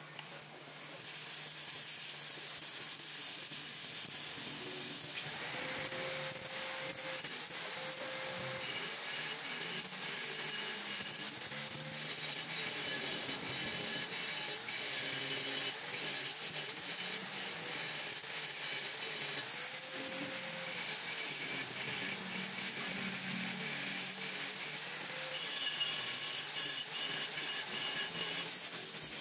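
Gas welding torch flame hissing steadily, coming on about a second in, as it heats and melts aluminium on an engine crankcase.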